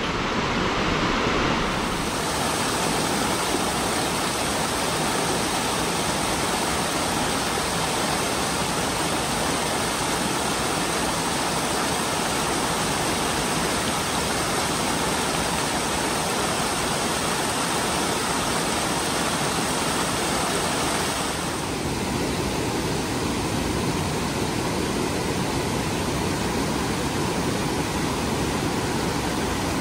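Frying Pan Creek, a fast mountain creek, rushing over rocks in a loud, steady white-water rush; its hiss thins a little about two-thirds of the way through.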